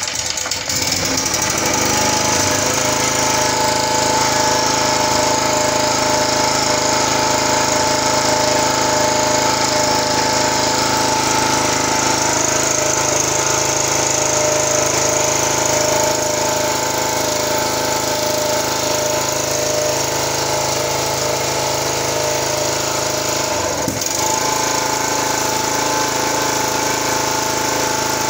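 Portable gasoline generator's GX160-type single-cylinder four-stroke engine running at a steady speed, with a brief dip in the sound about twenty-four seconds in.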